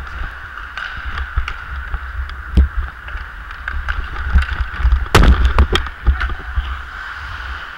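Ice hockey skates gliding on the ice with a steady hiss, and a hockey stick clicking against the puck as it is carried. There is a quick run of louder clicks about five seconds in, over a low rumble of wind and movement on the worn camera's microphone.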